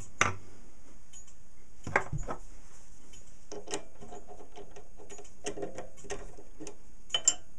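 Metal clicks and knocks of a small lathe's three-jaw chuck being worked with its chuck key while the turned die-cast gear wheel is handled in the jaws. Two sharp knocks near the start, then a run of light clicks and clinks through the middle, and two more sharp clicks near the end.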